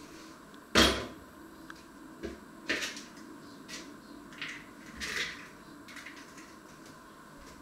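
Kitchen handling noises: one sharp knock about a second in, then four or five softer knocks and rustles.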